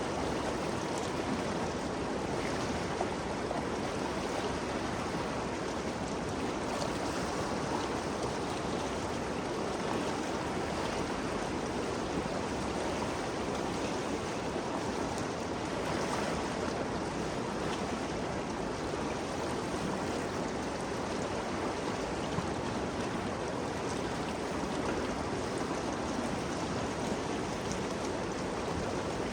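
Ganges River flowing and rushing past at a steady level, an even wash of moving water.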